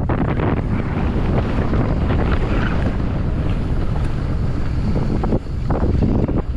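Wind buffeting the microphone on a moving mountain bike ride, with frequent short knocks and rattles from the bike on rough trail.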